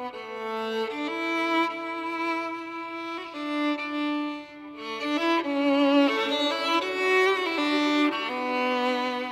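Violin playing a slow folk melody in long held notes, with vibrato on the notes around the middle.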